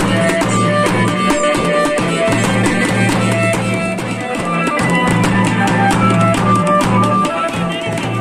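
Wedding music: dhol and damau drums beating a dense rhythm under a melody of short held notes over a steady low drone.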